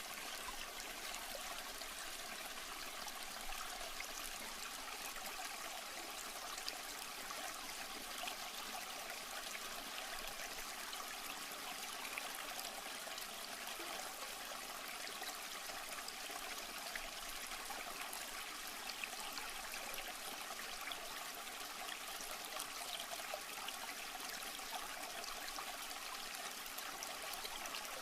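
Steady trickling and splashing of water from an aquarium filter outflow, running without a break.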